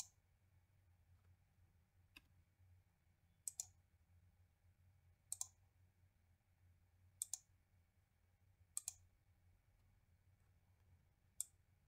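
Computer mouse clicking: faint, sharp clicks, mostly in close pairs, about every two seconds, over a faint low hum.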